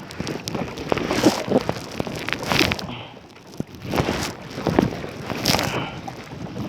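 Kayak paddle strokes dipping and splashing in the water at a steady rhythm, about one stroke every second and a half.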